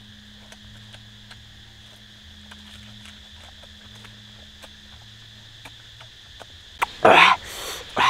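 Steady drone of forest insects, with faint scattered clicks. About seven seconds in, a man's loud breathy exhalations break in.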